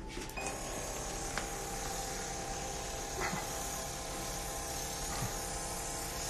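Electric microneedling pen running with a steady whine and hiss that starts just after the beginning, its needle depth set to 1 mm for the forehead.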